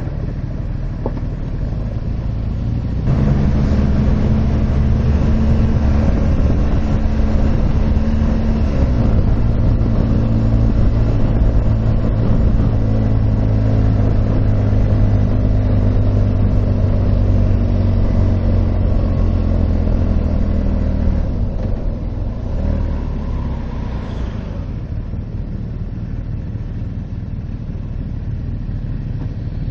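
Motorcycle engine running under way. The engine note rises sharply about three seconds in as the bike accelerates, holds a steady pitch, and eases off about 21 seconds in.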